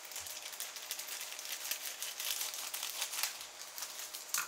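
Scissors cutting open a plastic poly mailer, the plastic crinkling steadily as it is cut and handled, with a sharp click near the end.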